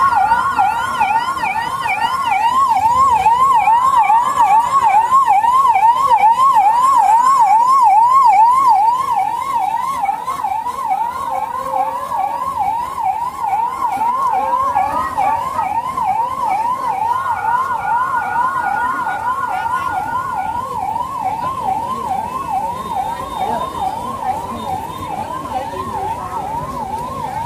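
Electronic yelp siren, its pitch sweeping quickly up and down at about two to three sweeps a second without a break, growing quieter after about nine seconds.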